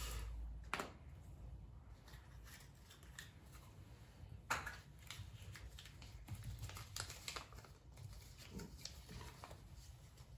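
Faint rustling and crinkling of a small folded paper slip being unfolded and handled by hand, with scattered small crackles and ticks.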